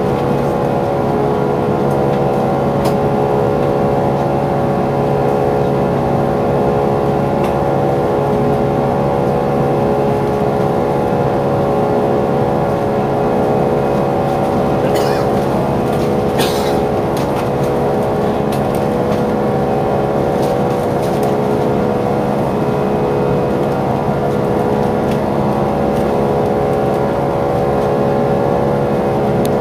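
Steady cabin noise of an Airbus A340-300 in climb after take-off: an even rush of air with a steady hum of several engine tones from its four CFM56 turbofans. Two brief faint ticks sound about halfway through.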